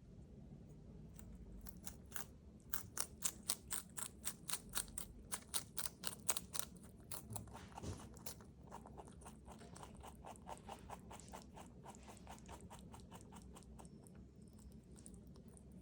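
A domestic rabbit chewing crisp bok choy: a run of loud, sharp crunches at about four to five a second, then softer, quicker chewing from about 8 seconds in.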